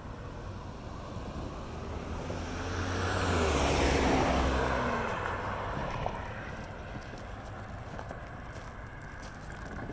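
A car driving past on the road: engine and tyre noise swells to a peak about four seconds in and then fades away, its pitch dropping as it goes by.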